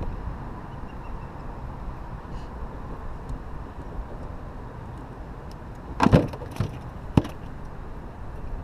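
A cluster of sharp knocks about six seconds in and a single sharp knock about a second later, over a steady low background rumble.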